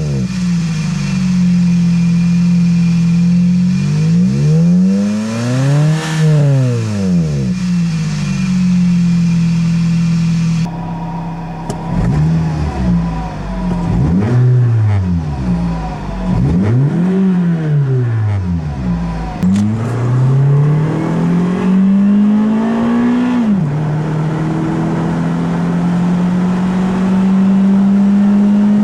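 Toyota Celica GT-S's 2ZZ-GE four-cylinder engine breathing through a TRD muffler, revved up from idle and let fall back several times in quick blips. Near the end it settles into a steady note that climbs slowly in pitch. The exhaust sounds quiet, close to stock below about 4,000 rpm.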